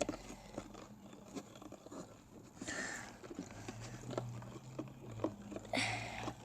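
Glue-and-activator slime being stirred with a utensil: a run of small, irregular sticky clicks as the mixture pulls and folds.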